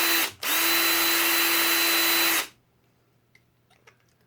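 Electric drill with a 3/16-inch bit running at a steady speed, drilling out a stubborn die-cast rivet on a toy car's base. It stops for a moment just after the start, runs again for about two seconds, then cuts off, followed by a few faint clicks.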